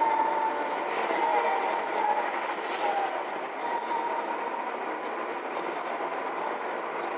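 Steady road and tyre noise heard inside the cabin of a moving car, with a thin whistle-like tone that comes and goes.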